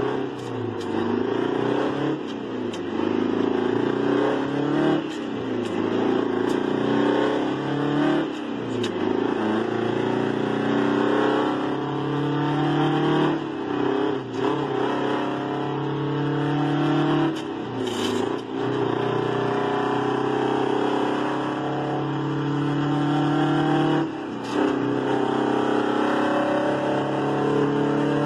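A 1980 GMC General's straight-piped 8V71 Detroit two-stroke diesel pulls hard through the gears. Its note climbs in pitch and then drops at each upshift, about six times in a row.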